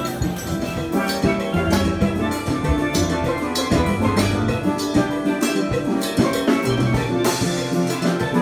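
Steel pans played by an ensemble in a steady rhythm, many pitched ringing notes at once, with drums and percussion keeping time underneath.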